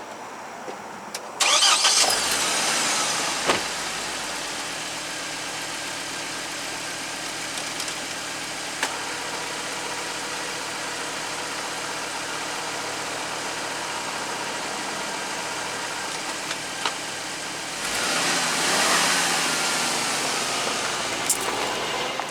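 2006 Hummer H3's 3.5-litre inline five-cylinder engine starting about a second and a half in, settling to a steady idle, then picking up speed for a few seconds near the end.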